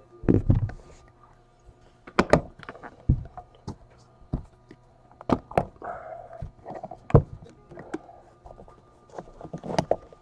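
Metal briefcase-style card box being unlatched and opened by hand: a series of sharp clicks and knocks from its metal latches and lid, with a few dull thunks.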